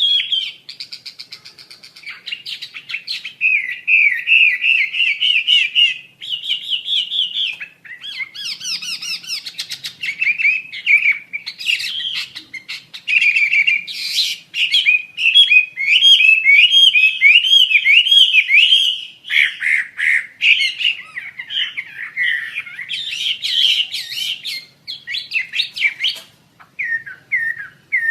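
Asian paradise flycatcher (wambi) singing: long runs of fast, rippling chattering phrases with short breaks, mixed with harsher high notes.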